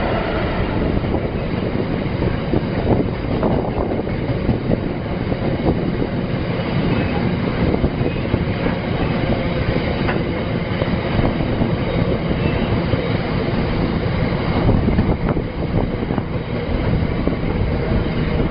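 Wagons of a passing freight train rolling by at speed: a steady, loud rumble of wheels on rail with scattered short clicks.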